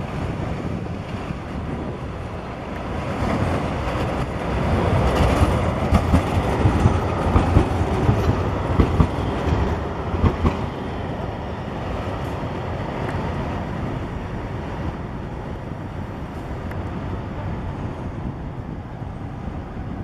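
Electric street tram passing close by on street track. Its wheel rumble swells and peaks with a run of sharp knocks over several seconds in the middle, then eases to a lower steady sound as the tram moves on.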